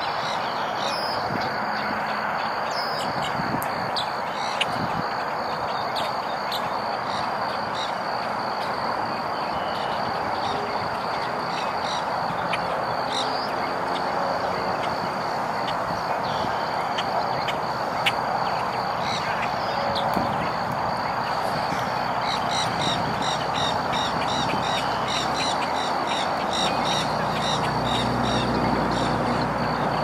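Marsh ambience of a wading-bird flock foraging in shallow water: a steady background hiss with a thin high whine, scattered short bird calls, and a run of rapid repeated high chips from about two-thirds of the way in. A low rumble comes in near the end.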